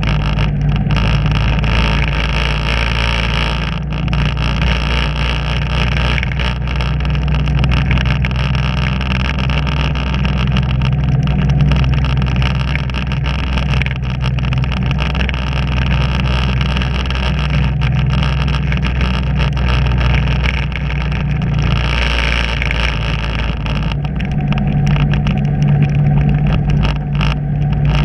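Vehicle engine running steadily while driving along at an even speed, a constant low drone with road noise over it.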